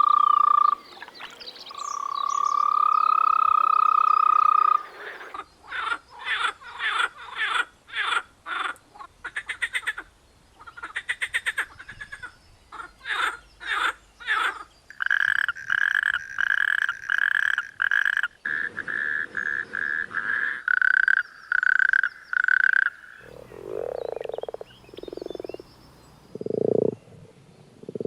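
A sequence of calls from different frog and toad species: two long, even, high-pitched calls at the start, then several series of rapid pulsed calls, and near the end a few deeper croaks each about a second long.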